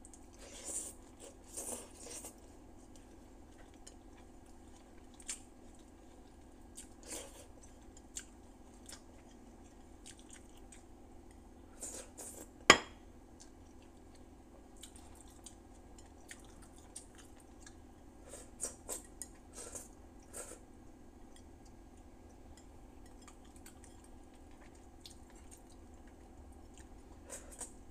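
Faint chewing and mouth sounds of someone eating rice and sinigang vegetables with her fingers from a plate, with scattered soft clicks and taps over a low steady hum. One sharp click about halfway through is the loudest sound.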